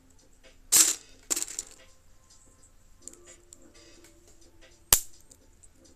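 Loose plastic Lego pieces clattering in two quick bursts about a second in, then a single sharp click near the end.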